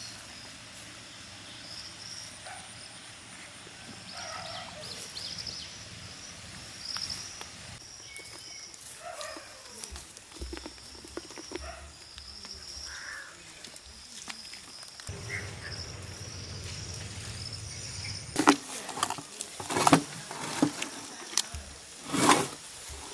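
Outdoor ambience of birds calling over a steady high insect buzz. For the last few seconds there is a run of loud, sharp crackling and tearing sounds as roasted mutton is pulled apart by hand.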